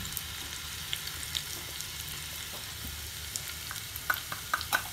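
Crushed garlic and asafoetida sizzling in hot ghee in a small tadka pan: the tempering (tadka) for saag. It is a steady sizzle with scattered sharp spits and pops, which come more often near the end.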